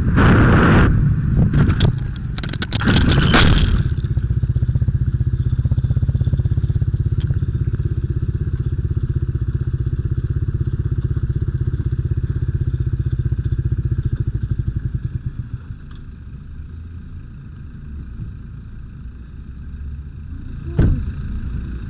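Motorcycle crash: heavy impacts and scraping as the bike goes down in the first few seconds. The fallen motorcycle's engine then keeps running steadily and stops about fifteen seconds in, leaving quieter background noise and one sharp knock near the end.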